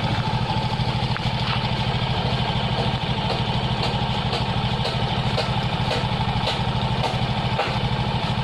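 Honda XRM125's single-cylinder four-stroke engine idling steadily with an even, rapid beat, now that it starts and runs properly again on a new voltage regulator.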